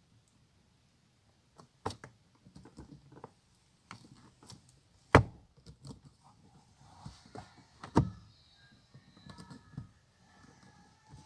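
Pliers and plastic interior trim parts of a car clicking and knocking as they are handled. There are many small ticks and two louder sharp knocks, about five and eight seconds in, and a few faint squeaks near the end.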